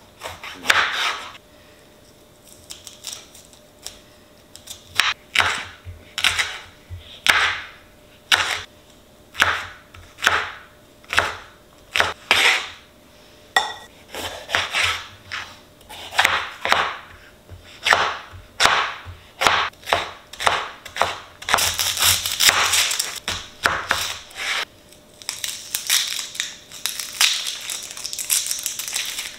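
Chef's knife chopping jalapeño and red bell pepper on a plastic cutting board: separate cuts about a second apart, then quicker runs of dicing in the second half.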